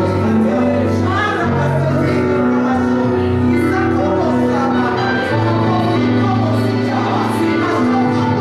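Church worship music: held instrument chords with a bass line, under several voices singing.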